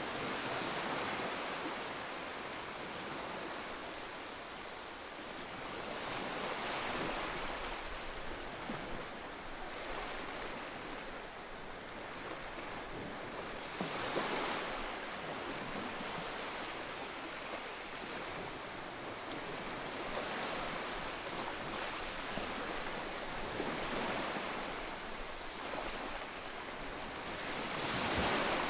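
Ocean surf: waves breaking and washing in slow swells, each surge rising and falling away, with louder surges near the start, about halfway through and near the end.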